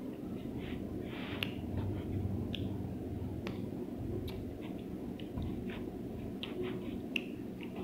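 Close-up chewing and mouth smacking while eating raw green lemon with salt and chili: scattered sharp, wet lip-and-tongue clicks over a steady low hum.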